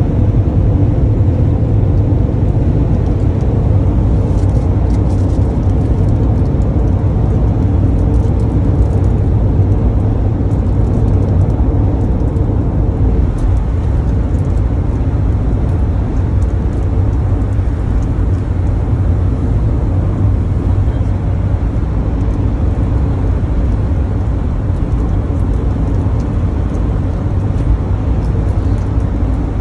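Steady cabin noise inside a Toyota van cruising at highway speed: a low engine and road rumble with tyre noise, even and unbroken throughout.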